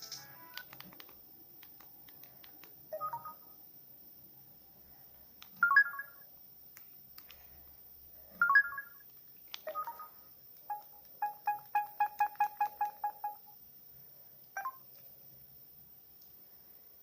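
Samsung phone ringtone and alarm tones: several short electronic chimes a few seconds apart, then a quick, even run of about a dozen beeps lasting nearly three seconds, and one more short tone near the end.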